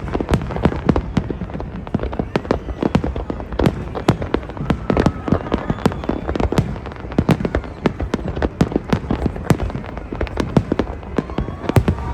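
Fireworks display: a dense, irregular barrage of bangs and crackles from bursting shells, several a second.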